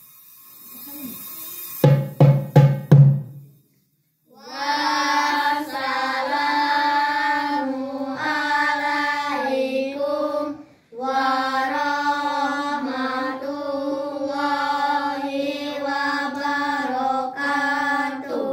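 Four drum strokes from a marawis ensemble, the big hajir bass drum the loudest. Then a child sings a sholawat alone, unaccompanied, in long held phrases with a short break about halfway.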